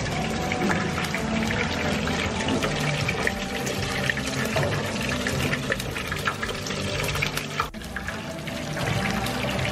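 Hot oil sizzling and crackling in a twin-tank stainless-steel deep fryer as food fries in the basket. The sizzle is steady and thick with fine pops, with a brief dip near the end.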